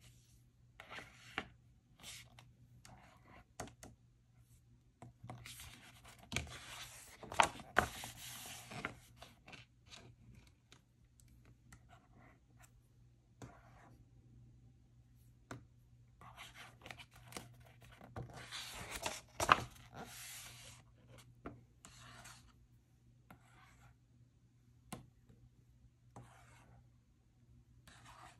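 Hands unboxing and handling toys and their packaging: scattered clicks and taps, with two longer bouts of rubbing and rustling, about five to nine seconds in and again around eighteen to twenty-one seconds in.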